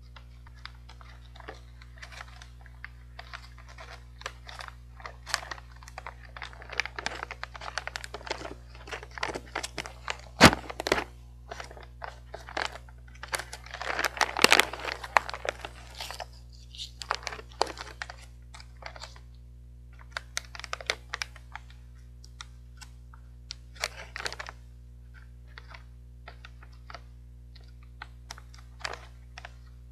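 Crinkling and tearing of a plastic snack bag of sweet potato sticks being opened by hand, densest in the first half, with one sharp crack about ten seconds in. Later, scattered rustles and crunches as the fairly hard sticks are taken out and chewed.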